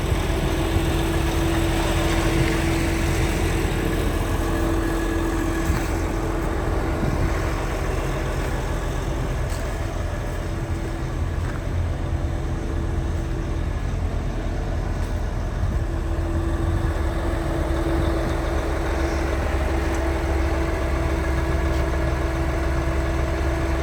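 Liebherr PR 756 bulldozer's diesel engine running steadily, with a constant tone held over the low engine note.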